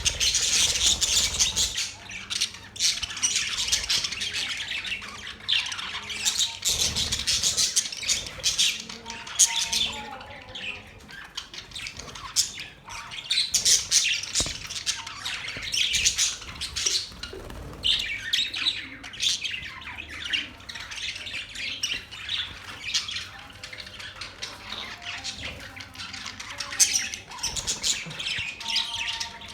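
Flock of budgerigars chirping, warbling and squawking continually, several birds at once.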